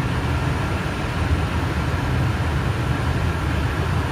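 Steady ventilation blower noise, a low rumble with an even hiss that does not change.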